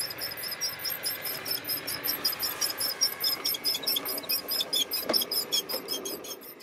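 LGB garden-railway train rolling past on its track, its wheels making a fast, even clicking over a faint steady whine. The clicking is loudest in the middle as the wagons pass closest and fades away near the end.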